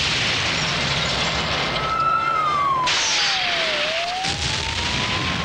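Action-film sound effects: a loud, steady rushing roar of an explosion and fast-moving vehicles. Over it, a single siren-like tone slides down about two seconds in and climbs back up toward the end.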